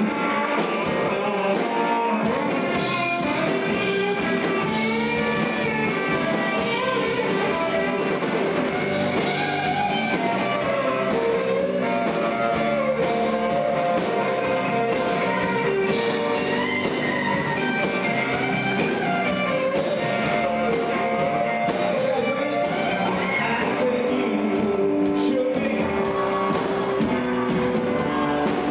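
A rock band playing a song, led by guitar, with singing.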